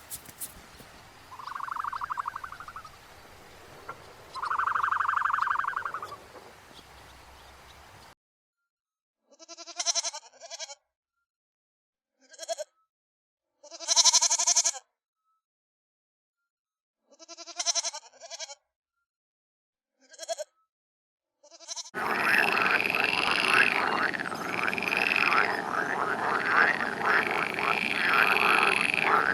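A series of animal calls. First two short calls over faint background sound, then about six separate pitched cries with silence between them, and for the last several seconds a dense, continuous chorus of many calls.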